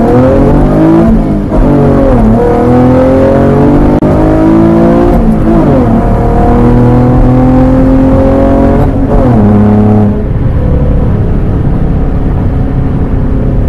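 V6 Camaro engine heard from inside the cabin under hard acceleration, revving up through the gears. There are three upshifts a few seconds apart, each one dropping the pitch before it climbs again. About ten seconds in it eases off to a steady highway cruise.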